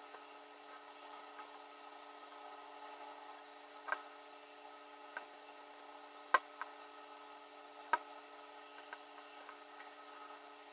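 Scattered small clicks and taps of fingers and a small tool against a Nikon D4 camera body while its front rubber grip is being replaced, over a faint steady hum. The sharpest click comes about six seconds in.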